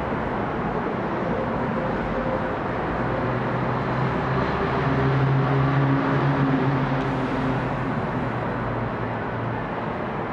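City street traffic: a steady wash of vehicle noise, with a low engine hum that builds a few seconds in and fades away near the end.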